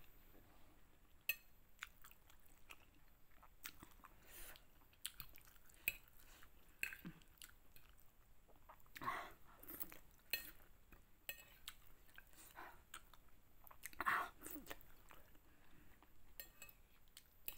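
Close-up chewing of spicy chicken noodles, with wet mouth noises and scattered short sharp clicks, two louder bursts about nine and fourteen seconds in.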